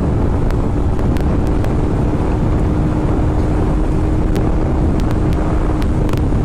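Carbureted Kawasaki Ninja engine running at a steady cruising speed, a held engine drone under heavy wind rush on the helmet microphone; the drone fades near the end.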